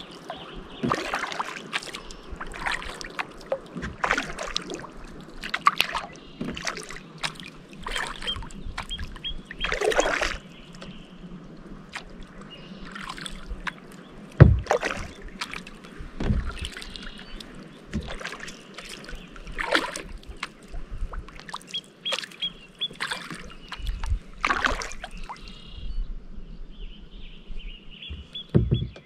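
Kayak paddle strokes: the paddle blades dipping and pulling through calm lake water, with splashes and drips at an uneven pace. About halfway through comes one loud thump, the loudest sound of all.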